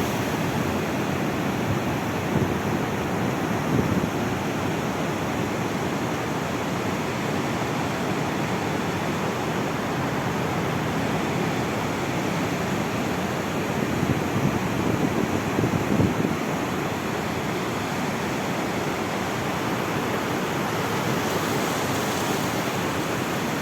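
Sea waves washing on the shore: a steady rush of surf, with louder surges about four seconds in and again around fifteen seconds.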